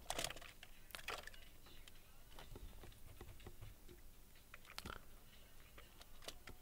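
Faint, scattered keystrokes on a computer keyboard, a few single clicks with pauses between them.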